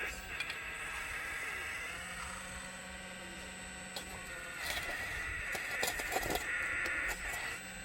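Radio-controlled scale model Volvo excavator running, its small electric motors whining steadily, with a hum that cuts in and out as functions are worked. Around the middle to near the end the whine grows louder with a run of clicks and clatter from the moving parts.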